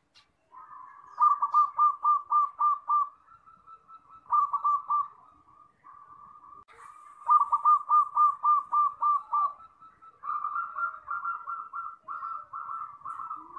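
Zebra dove (perkutut) cooing: several phrases of quick, rolling coo notes, about four a second, with short gaps between them.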